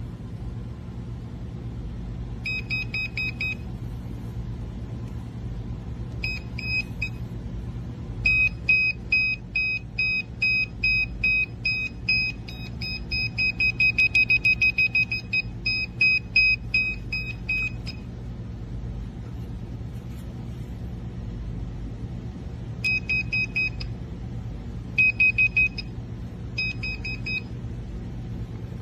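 Handheld electrical tester beeping in quick pulses: a few short bursts, then a long run in the middle where the beeps speed up until they almost run together, then short bursts again. A steady low hum sits underneath.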